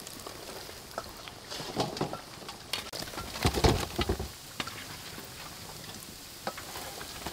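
Hot oil crackling and sizzling as chicken legs deep-fry in a wok, a steady patter of small pops. A few duller knocks stand out, loudest about three and a half seconds in.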